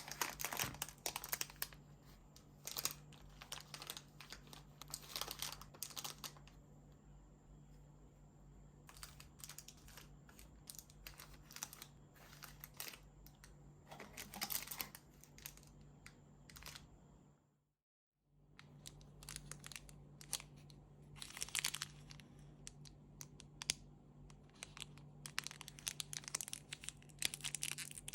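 Chocolate wrappers being crinkled and torn open by hand, in irregular crackly bursts, with a brief dropout about two-thirds of the way through.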